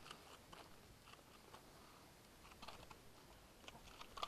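Near silence, with faint, irregular small clicks and rustles, a few of them grouped together about two and a half and four seconds in.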